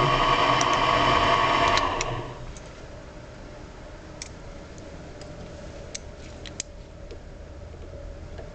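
A machine tool's motor running with a steady whine is switched off about two seconds in and dies away quickly. After that there is a quieter steady hum with a few light clicks and taps.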